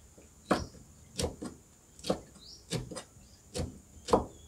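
A kitchen knife chopping kaffir lime peel on a thick wooden chopping block: about six sharp knocks, roughly one every three-quarters of a second.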